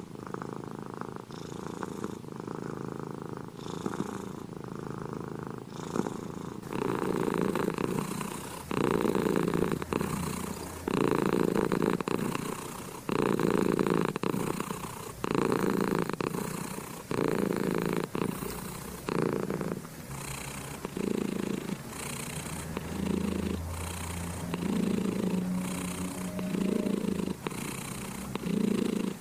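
Tabby cat purring steadily while being petted, the purr swelling and fading in a regular rhythm of about one cycle every two seconds.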